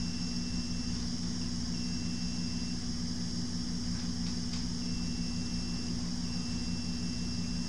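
Steady low electrical hum with a high hiss, the constant drone of running bench equipment.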